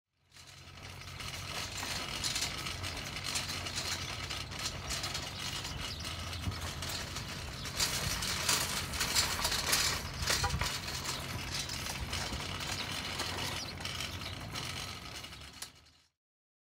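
Wire shopping cart rattling as it rolls over pavement, over a steady low hum. It fades in at the start, is a little louder in the middle, and cuts off near the end.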